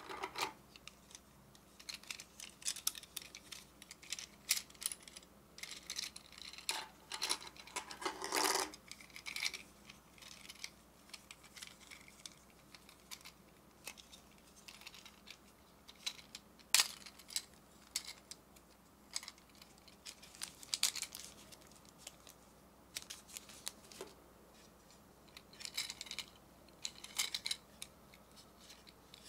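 Fingers handling a small hard plastic birdcage toy: irregular clicks, taps and rubbing of the plastic bars, hinged cage halves and hanging chain as it is turned over and opened.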